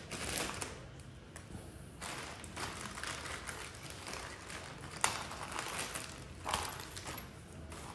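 A clear plastic parts bag being snipped open with scissors and crinkled as the plastic pieces inside are handled, with a sharp click about five seconds in.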